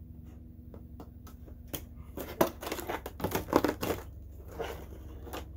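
Clear plastic figure packaging handled and its tape slit with a small knife: scattered scratchy cuts, clicks and plastic crinkling, busiest a couple of seconds in.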